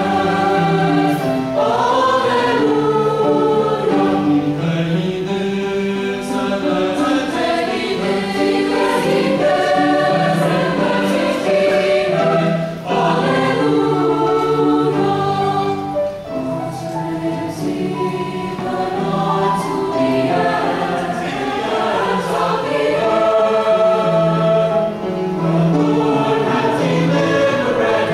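A mixed choir of girls' and boys' voices singing a piece in harmony, with brief breaks between phrases.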